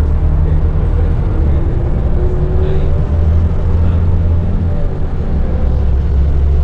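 Interior sound of a Scania L94UB city bus under way: the rear-mounted five-cylinder diesel runs steadily with a strong low rumble, heard from inside the passenger cabin.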